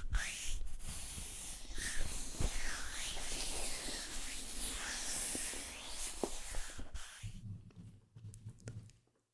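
Close-miked ASMR trigger sounds: hissing, scratchy strokes rubbed across the microphone, repeatedly sweeping up and down in pitch. About seven seconds in they stop, leaving faint small clicks and a low hum.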